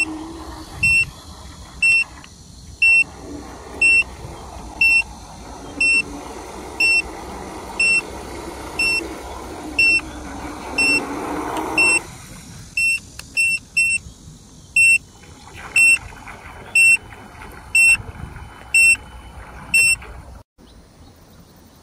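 Electronic beeper giving short, high beeps about once a second, a few coming quicker about thirteen seconds in. Under them is a steady rushing noise that fades about twelve seconds in, and the beeps stop shortly before the end.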